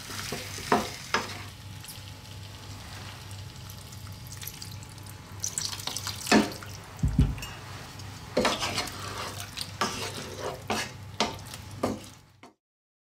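Pumpkin cubes and berbere paste sizzling in oil in a frying pan, stirred with a wooden spatula that scrapes and knocks against the pan. A splash of water is poured in about six seconds in, with a heavy knock just after, and the sound cuts off suddenly near the end.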